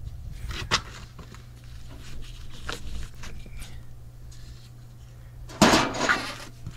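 A wrench working on the negative post clamp of an AGM battery: scattered light metal clicks and taps, then a louder clatter lasting under a second about five and a half seconds in. A steady low hum sits underneath.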